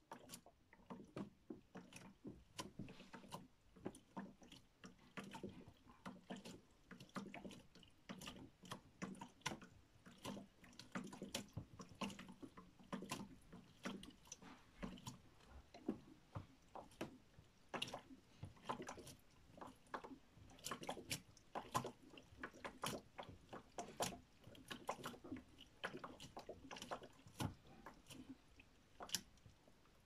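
LG WD-14370FD front-loading washing machine drum turning slowly in its load-distribution phase: a quiet low motor hum with irregular light clicks and taps, two or three a second, as the contents shift and tumble in the drum.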